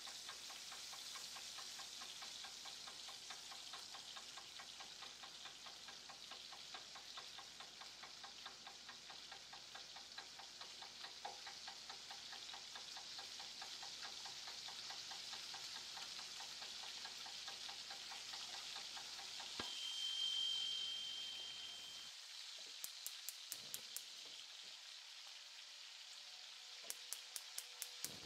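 Food frying in a pan: a faint steady sizzle with fine crackling. About two-thirds of the way through, a brief high steady tone sounds for a couple of seconds; after it the sizzle goes on thinner, with two quick runs of light ticks near the end.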